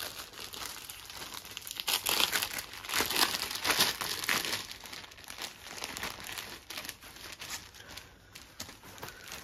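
Plastic garment polybags crinkling and rustling as they are pulled open, with irregular crackles that are busiest about two to five seconds in.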